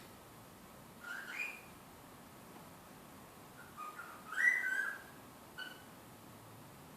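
Cockatiel whistling: a short rising whistle about a second in, a longer run of gliding whistle notes around four to five seconds in, the loudest part, and a brief chirp soon after.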